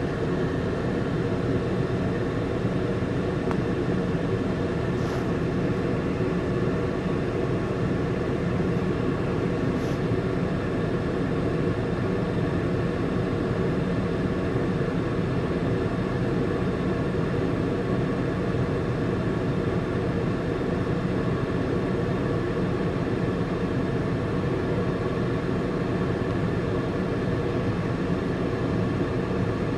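Steady drone of a stationary car idling, heard from inside its cabin.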